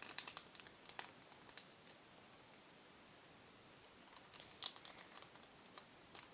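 Faint, scattered clicks and light scrapes of a spoon and container being handled while cornstarch is mixed into hand soap for slime, with a quiet stretch in the middle and a small cluster of clicks near the end.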